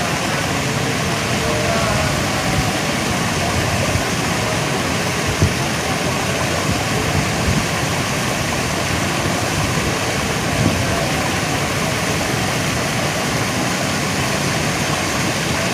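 Strong wind blowing on the microphone: a steady rushing noise with an unsteady low rumble, and faint distant voices underneath.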